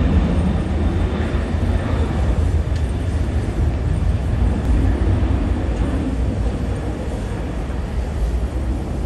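Twin-engine jet airliner at takeoff power during its takeoff roll and lift-off, a steady low rumble of jet engine noise.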